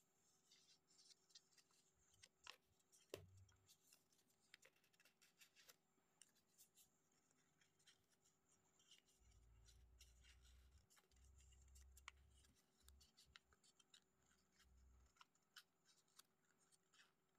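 Near silence, with faint rustles and scattered small clicks of origami paper being handled and creased by hand. A faint low rumble comes and goes in the middle.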